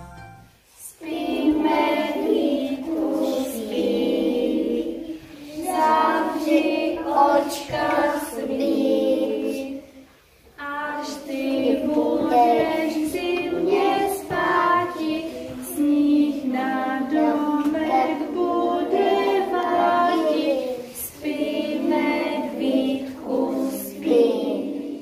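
A group of young children singing together, with a short break about ten seconds in.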